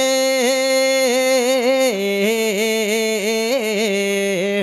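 A man singing a naat, an Urdu devotional song in praise of the Prophet, with no instruments. He draws out one long melismatic note with wavering ornamented turns, stepping down to a lower pitch about two seconds in.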